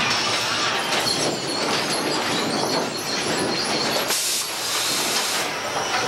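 Sawmill lumber stacker running with its chain conveyors and steel frames: a steady mechanical noise of metal machinery, with a burst of hiss about four seconds in that lasts over a second.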